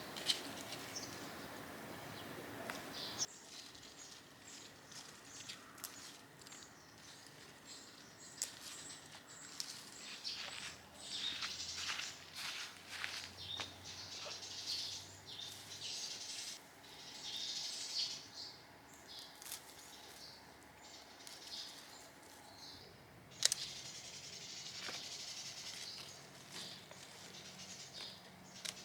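Outdoor ambience with birds chirping in many short high calls, busiest in the middle and near the end, and a sharp click about 23 seconds in.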